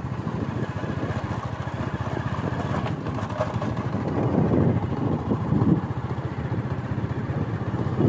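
Engine of a vehicle carrying the recorder, running steadily as it travels, with a rapid low pulsing.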